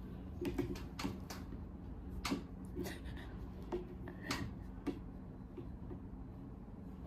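A few scattered light clicks and taps, about seven in all, irregularly spaced, over a low steady hum.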